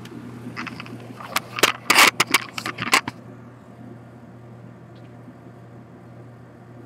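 Handling noise as a camera is set down on a brick ledge: a quick run of scrapes and sharp knocks for about two and a half seconds, stopping about three seconds in, over a steady low hum.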